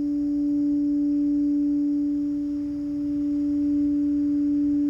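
Singing bowl ringing with one steady, pure tone and a fainter higher overtone, its volume swelling and easing gently.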